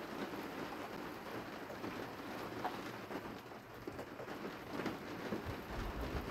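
Rain pattering steadily close to the microphone, a dense crackle of small drops, with a brief low rumble near the end.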